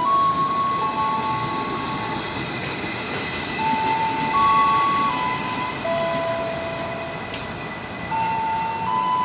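KRL Commuter Line electric train running in along the platform and coming to a stop, with a steady rumble and hiss. A slow melody of held, chime-like tones plays over it, each note changing pitch every second or so, and there is a single sharp click near the end.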